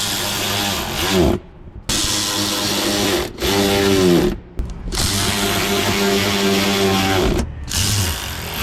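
Cordless drill/driver running in about five bursts of a few seconds each, its motor whine falling in pitch as it spins down after each trigger release.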